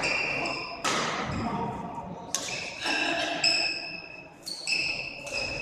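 Badminton rally: rackets smacking the shuttlecock with sharp, echoing hits, twice loudly and then once more softly, and players' shoes squeaking on the court floor between strokes.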